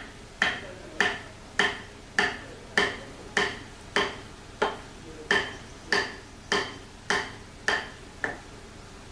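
Steady hammering: about fourteen sharp, ringing blows, evenly spaced a little over half a second apart, stopping near the end.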